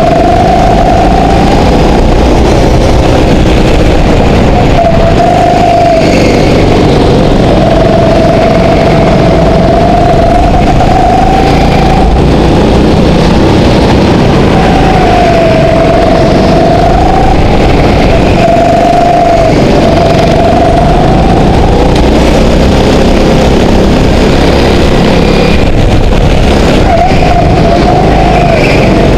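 Go-kart engine heard onboard, loud and running hard, its pitch climbing and dipping again and again as the kart accelerates and slows through the corners of a lap.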